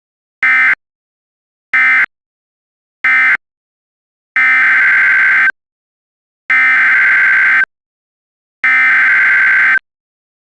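Emergency Alert System SAME digital data bursts, a harsh buzzing screech: three brief bursts about a second and a quarter apart, then three longer bursts of about a second each, the header that starts a new weather radio alert. The short bursts are the length of end-of-message codes, closing the alert before it.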